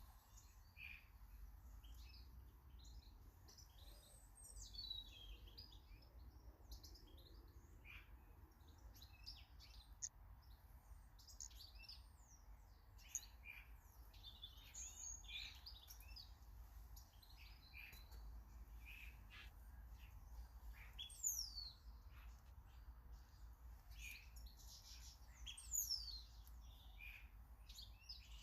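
Small garden birds chirping and calling faintly, with many short chirps throughout. Twice in the second half there is a quick high call that sweeps downward, the loudest sounds here.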